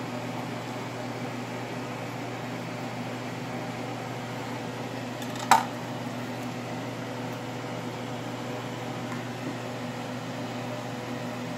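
Steady motor hum from a fan-type appliance, holding a constant low tone, with one sharp knock about five and a half seconds in.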